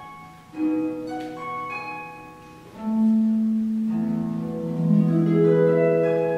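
Concert pedal harp played solo: a few soft plucked notes, then a louder low note about three seconds in with further notes plucked over it, all left to ring together.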